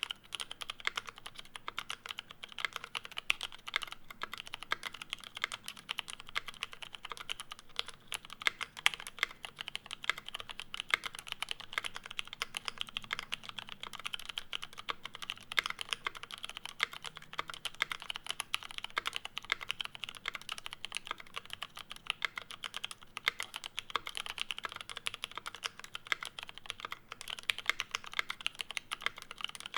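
Continuous fast typing on a custom mechanical keyboard with lubed, filmed Cherry MX Retooled Brown tactile switches, GMK keycaps and a brass case: dense, irregular keystroke clicks, several a second, with no pause.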